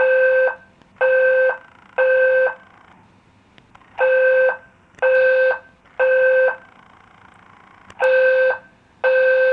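Apartment building fire alarm horn sounding the temporal-three evacuation signal: three half-second blasts of a buzzing tone about a second apart, a pause, then three more. A third set begins near the end.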